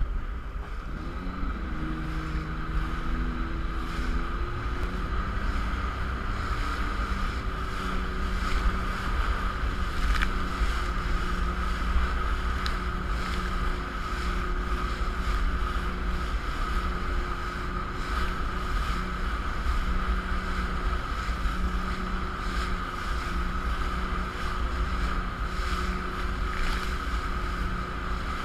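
Jet ski engine running under way, its note shifting in the first few seconds and then holding steady, over water rushing past the hull and a low wind rumble on the microphone.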